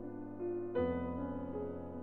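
Background piano music, held chords with a new chord struck a little under a second in.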